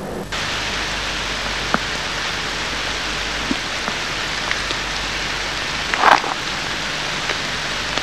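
Steady hiss of rain, with a few faint ticks and a short rustle about six seconds in.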